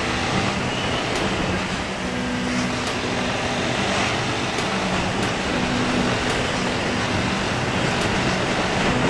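Motorcycle cruising at steady road speed: wind rushing over the microphone, with the engine's low hum coming and going underneath.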